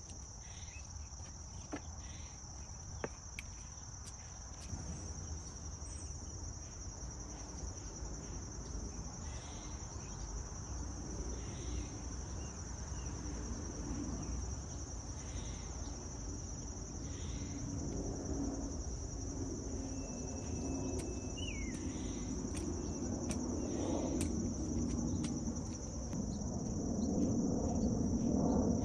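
A steady, high-pitched chorus of crickets running unbroken, with a short bird call a little past two-thirds of the way in. A low rumble underneath grows louder in the second half.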